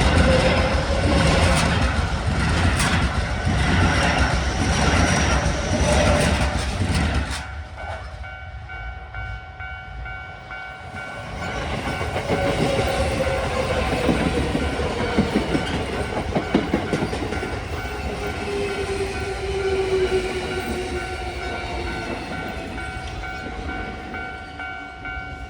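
Keio 9000 series electric train running over a level crossing, its wheels clattering over the rail joints until the train clears about seven seconds in. A level-crossing alarm keeps ringing with a repeated ding. From about twelve seconds another train approaches, with a motor whine that slowly falls in pitch.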